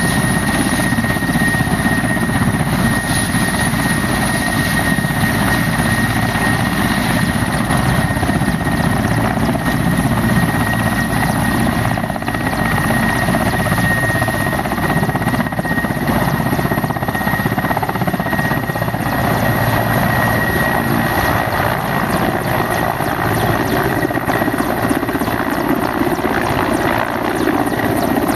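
Mi-8-family military helicopter running on the ground with rotors turning: a steady, loud rotor and twin-turboshaft engine sound with a constant high turbine whine. Near the end it lifts off and passes low overhead.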